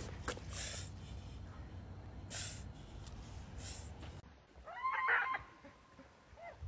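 A dog whines loudly in a high, wavering cry about five seconds in, with a brief smaller whimper near the end, protesting at being lifted out of the water. Before it come three short hissing puffs over a low rumble.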